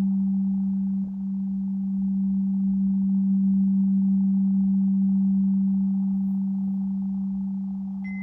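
Singing bowl sounding one steady, low, pure tone, kept going by the player, with a brief dip in level about a second in. Right at the end a high pure tone from a tuning fork joins in.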